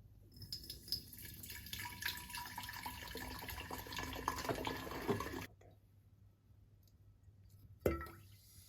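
Water running from a tap into a container for about five seconds, then cut off abruptly; a single sharp knock near the end.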